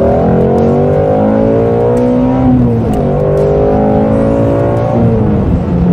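Shelby GT350's 5.2-litre flat-plane-crank V8 under full-throttle acceleration in a rolling second-gear pull from 4,000 RPM, heard from inside the cabin. The engine note climbs, breaks and drops a little under halfway through, climbs again, then eases off about five seconds in.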